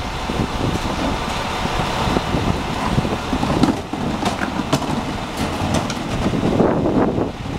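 Heil Multitask SL garbage truck on an Autocar ACX chassis running at a standstill, with strong wind buffeting the microphone. Through the middle and latter half come several sharp knocks and rattles as a plastic wheeled cart is rolled up to the truck's tipper.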